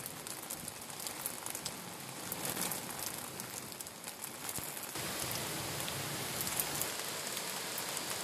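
Heavy rain pouring down: a steady hiss of falling rain with many scattered sharp drop impacts.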